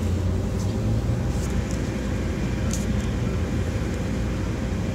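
Steady low rumble of an electric interurban railcar on the Norristown High Speed Line, with a constant hum over it and a few faint ticks.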